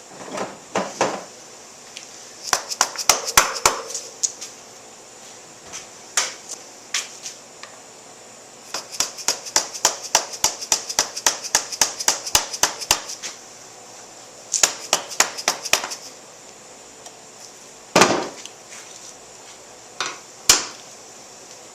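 Ratchet wrench clicking in quick runs of about six clicks a second while the fork's axle pinch bolts are loosened, three runs in all. A few single heavier metal knocks come near the start and near the end.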